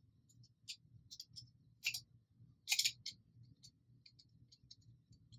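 Scattered light clicks and taps of small plunger parts and hardware being handled during assembly, with three louder clacks in the first three seconds.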